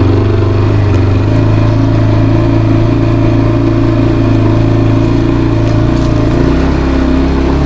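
Kawasaki Brute Force 300 ATV's single-cylinder four-stroke engine running steadily under the throttle. Its engine speed shifts about a second in and again near the end.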